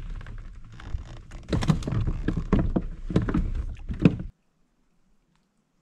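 Clattering knocks and thumps on a plastic fishing kayak's hull and gear as the angler handles his catch, louder from about a second and a half in; the sound then cuts off abruptly to near silence.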